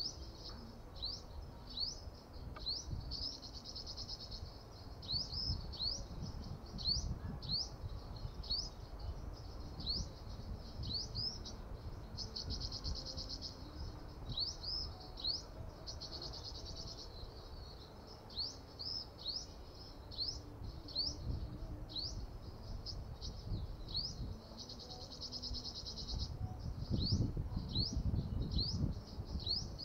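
A sunbird calling over and over: short, quick rising notes, one or two a second, broken by a few short buzzy trills.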